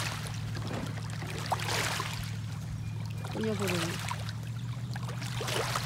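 Small boat's motor running steadily at low speed, an even low hum, with water trickling and splashing around the boat.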